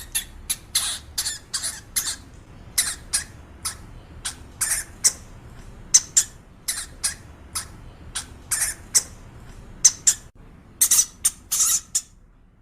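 Hamster squeaking: many short, high-pitched squeaks coming irregularly, a few a second, sometimes in quick pairs.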